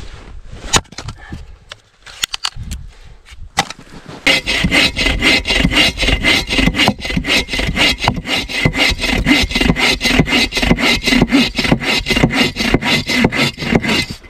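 A folding bow saw cutting through a log with fast, even back-and-forth strokes, starting about four seconds in. Before that there are a few scattered knocks and clicks.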